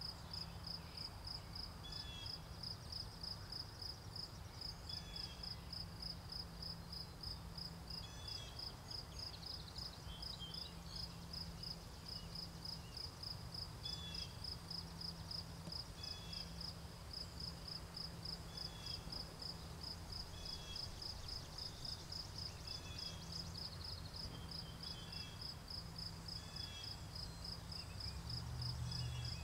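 Crickets chirping in a steady, fast pulse, with a second, lower short chirp repeating every couple of seconds, over a low rumble that grows near the end.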